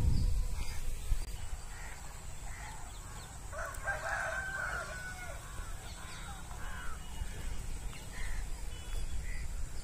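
A rooster crowing once, about four seconds in, among scattered short bird calls. A low rumble on the microphone fades away within the first second.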